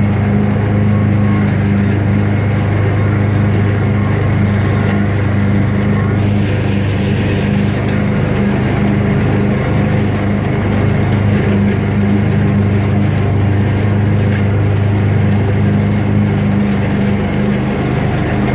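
Gravely ZT XL-60 zero-turn mower's engine running at a steady speed as the mower drives along, a loud even hum.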